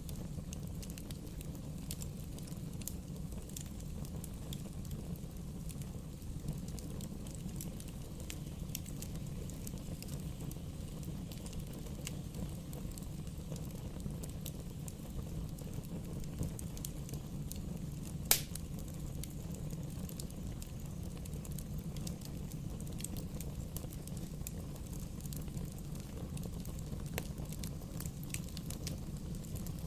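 Wood fire burning steadily with a low rumble and scattered sharp crackles, and one loud pop about 18 seconds in.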